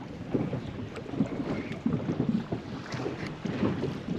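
Wind buffeting the microphone over water lapping and slapping against the hull of a drifting inflatable boat, with no engine running.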